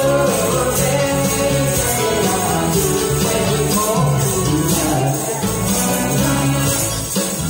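Karaoke accompaniment of a slow song playing through a PA system, with a handheld tambourine shaken along in time.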